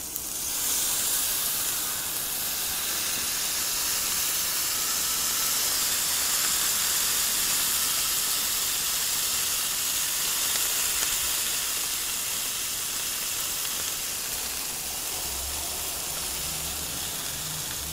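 Smash burger patties sizzling loudly as a burger press holds them flat on a hot flat top griddle, a steady high hiss that swells about half a second in and eases slightly near the end.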